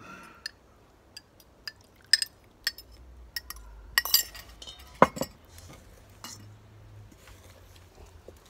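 A metal spoon clinking and scraping against a measuring jug and metal mixing bowl as the wet scone mix is scraped out. A series of sharp clinks, the loudest about five seconds in with a brief ring, then softer scraping.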